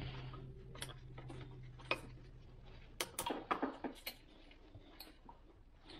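Scattered small clicks and taps of the new trim/tilt hydraulic hose's metal fitting being worked into its port on the gimbal housing by gloved hands, with a quick run of sharper clicks about three to four seconds in.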